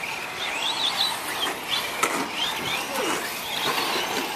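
Several electric radio-controlled short-course trucks racing, their motors whining in repeated quick rising and falling sweeps as they accelerate and brake.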